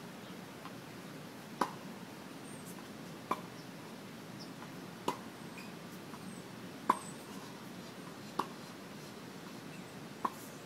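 Tennis racket strings hitting a ball in a steady baseline rally: six sharp pops, one about every 1.7 seconds.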